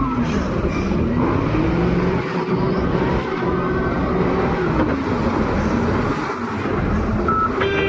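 Diesel engine of a wheel loader working, revving down and up twice as the machine works through its loading cycle. A reversing alarm beeps near the end.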